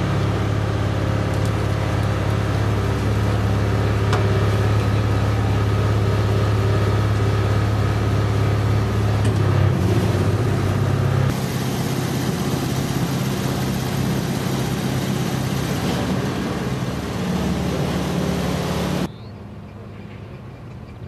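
Honda two-wheeler engine running steadily with a low, even hum. The sound changes abruptly in level and pitch about eleven seconds in and again near the end, where it drops to a much quieter hum.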